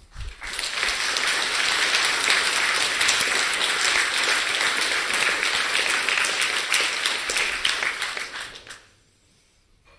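Audience applauding: many hands clapping together in a dense, steady patter that swells in the first second and dies away near the end.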